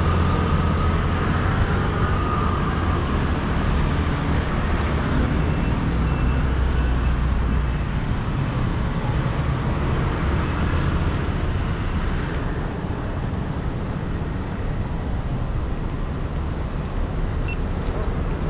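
Street traffic noise: a motor vehicle's engine running close by as a low rumble that eases about eight seconds in, over steady background street noise.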